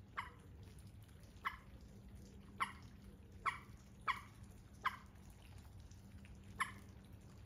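Water drops falling from overhanging leaves into a pond: short, sharp plinks at irregular intervals, about one a second, over a faint low hum.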